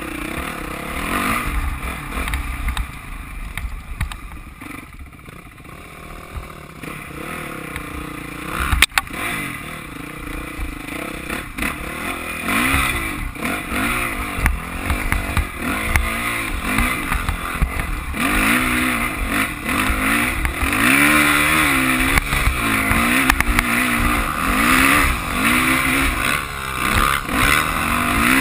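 Dirt bike engine running under load, its revs rising and falling over and over as the rider throttles on and off, getting louder in the second half. A sharp knock about nine seconds in.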